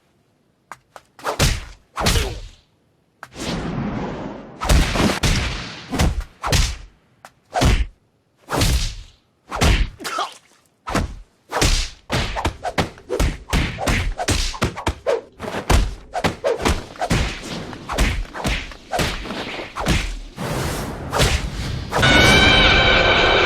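A rapid string of anime-style fight sound effects: swishes of fast blows and thudding hits, one after another, coming faster from about halfway through. A drawn-out pitched sound comes in near the end.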